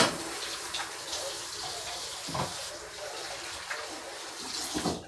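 Sink tap running as hands are washed under it, a steady splashing hiss with a couple of light knocks, cut off abruptly near the end.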